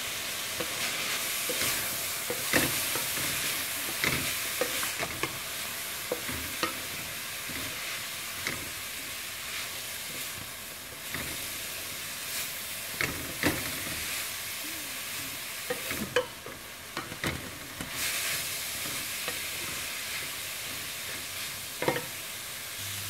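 Shredded cabbage, carrot, peas and corn sizzling in an aluminium pan as a wooden spatula stirs and scrapes them, with scattered knocks of the spatula against the pan. The steady hiss is the vegetables softening while their water cooks off.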